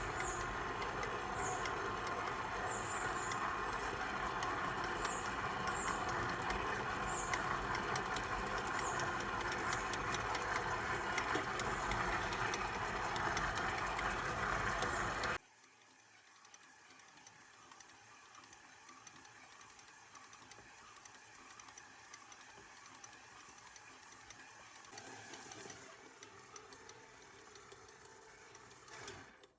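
Stand mixer motor running steadily while it mixes and kneads bread dough, cutting off abruptly about halfway through, after which only a faint, quiet sound remains.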